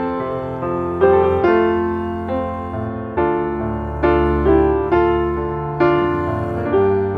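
Background keyboard music: chords struck about once a second, each fading before the next.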